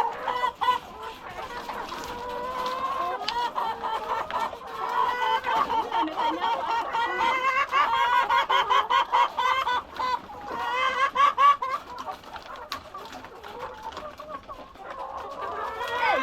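A flock of hungry laying hens clucking continuously, many overlapping calls at once, as they crowd in at feeding time.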